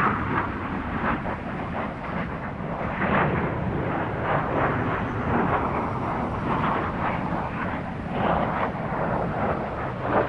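Single-engine turbojet of a MiG-21 fighter flying past overhead: a loud, continuous crackling rumble that swells and eases as the jet climbs and turns.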